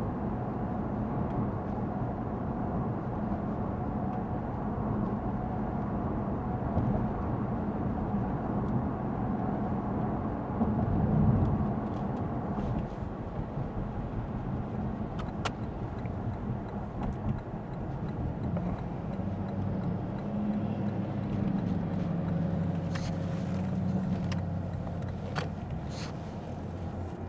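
Lexus ES 350 F Sport's 3.5-litre V6 and tyres on wet road while driving, a steady drone whose engine pitch rises and falls with speed, with a few faint clicks.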